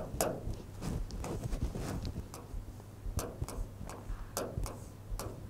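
Chalk writing on a chalkboard: an irregular string of sharp taps and short scratches as letters are written, over a faint low hum.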